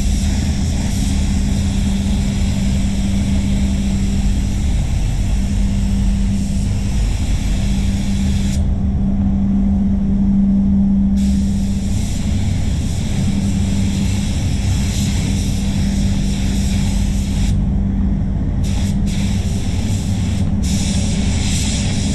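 Gravity-feed spray gun hissing with compressed air as it sprays paint, over the steady hum and rumble of the spray booth's fans. The gun's hiss cuts out twice, for about two and a half seconds near the middle and for about a second later on, as the trigger is let off between passes.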